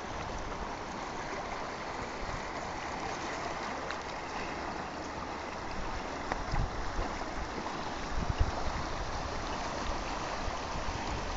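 Fast floodwater of a creek swollen by an ice jam, rushing steadily. A few low thumps come in the second half.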